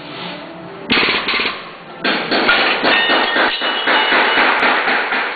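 A rapid, machine-gun-like rattle of repeated metal impacts starts about a second in, breaks off briefly, then resumes about two seconds in and keeps going.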